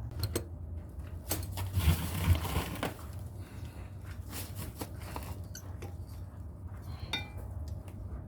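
Metal hand tools clinking and knocking as work begins on the boat's shaft fittings: scattered clicks, a stretch of scraping about two seconds in, and a short metallic ring near the end.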